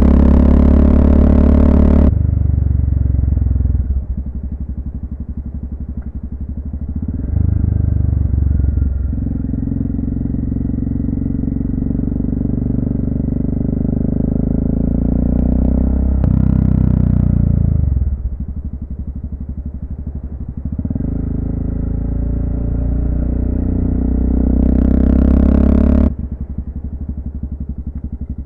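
Honda FMX650's single-cylinder engine running under way, its note rising and falling as the throttle is opened and closed through the bends. Stretches of pulling harder alternate with easing off several times, with a brief rise and drop in pitch past the middle.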